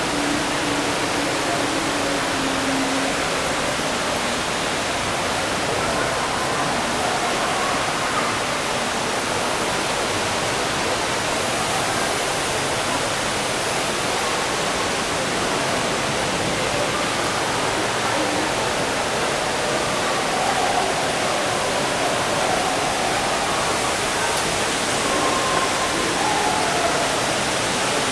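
Steady rush of a large indoor waterfall, an even noise of falling water that holds constant, with faint distant voices under it.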